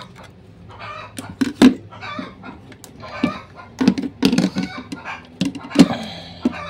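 Sharp clicks and knocks as a TV's power supply circuit board is handled and pressed into the plastic back housing, with a chicken clucking now and then in the background.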